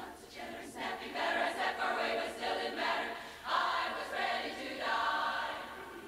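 Large women's barbershop chorus singing a cappella in close harmony.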